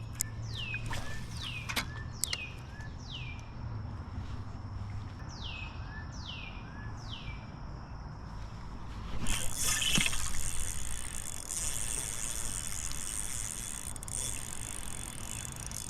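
A bird calls a run of about a dozen quick falling whistled notes, a little more than one a second, for the first seven seconds or so. From about nine seconds in a steady hiss of running creek water takes over, loudest around ten seconds.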